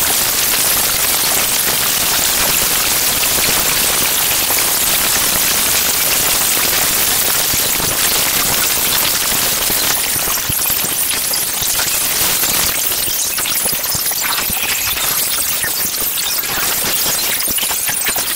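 Acousmatic electroacoustic music: a dense, steady wash of crackling, rain-like hiss, strongest in the highs. About ten seconds in, it thins into more separate crackles.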